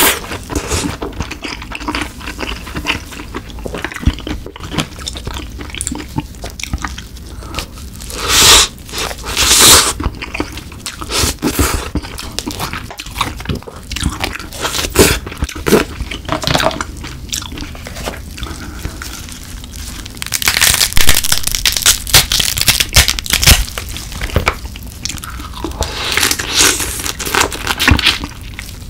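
Close-miked eating of snow crab: shell cracking, crunching and tearing as the legs and body are broken open, with sucking and chewing of the crab meat. A slurp of broth from a ladle comes right at the start, and crackly crunching is densest toward the end.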